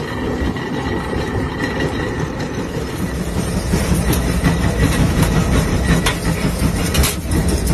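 Steam traction engine running, heard from its footplate: a steady rhythmic mechanical chugging and clatter, with sharp metallic clanks from about three seconds in.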